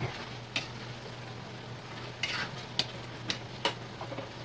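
Metal spatula stirring chicken stew in a metal wok, scraping and clinking against the pan about five times, over a steady sizzle of food cooking on the burner.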